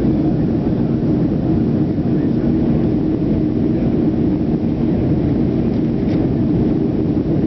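Steady, low drone of a Boeing 737-300's CFM56-3 turbofan engines and airflow, heard inside the passenger cabin during the climb after takeoff.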